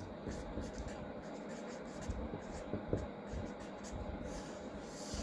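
Felt-tip marker writing on paper: faint, irregular strokes of the tip rubbing across the sheet.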